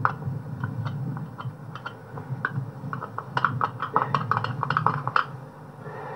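Light clicks and taps of a distributor rotor arm and cap being handled and fitted by hand, scattered at first, then in a quick cluster just past the halfway point, over a steady low hum.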